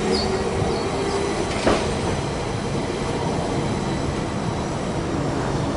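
A Melbourne tram running past on street track: steady rolling rumble, with a motor hum that fades out about a second in and a single sharp clack of the wheels about a second and a half in.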